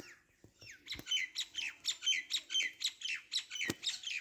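A bird calling in a quick run of short, falling notes, about four a second, starting about a second in. A couple of sharp clicks, the loudest near the end.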